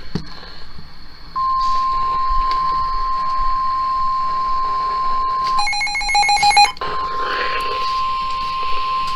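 NOAA Weather Radio's 1050 Hz warning alarm tone: a steady, loud single-pitch tone that starts about a second and a half in. It signals that a warning message is about to be broadcast. About six seconds in it is broken for around a second by a rapid, harsh electronic beeping, then resumes.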